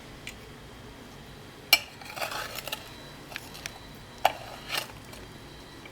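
A metal utensil clinking and scraping against a plate while a slice of cake is worked loose and lifted off: a few sharp clinks, the loudest just under two seconds in and another just after four seconds, with light scraping between.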